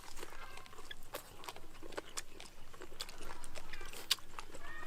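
A person chewing and biting into steamed cow-head meat, with irregular wet clicks and crunches.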